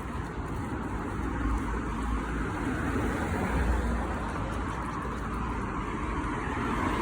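Steady noise of road traffic, with a low rumble underneath.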